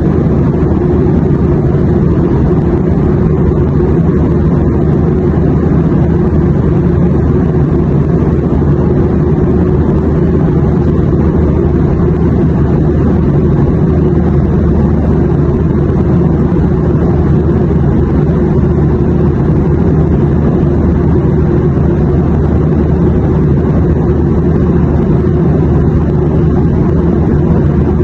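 Airplane noise: a steady, deep drone that does not change.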